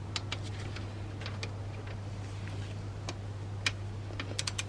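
Torque wrench ratcheting on the coolant flange's small bolts: scattered sharp metallic clicks, then a quick run of about four clicks near the end, over a steady low hum.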